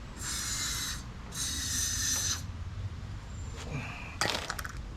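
Aerosol can of fogging oil sprayed through its straw into the engine's spark plug hole in two short hissing bursts, the second longer, to coat the cylinder wall. A brief rattle follows near the end.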